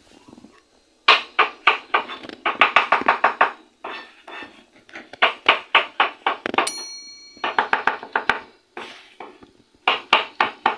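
Kitchen knife slicing button mushrooms on a wooden cutting board, in quick runs of about five or six strokes a second with short pauses between runs. A short ringing ping about two-thirds of the way through.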